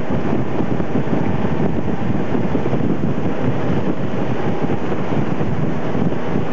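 A tow boat's engine running steadily at speed, with heavy wind buffeting the microphone and the wake churning.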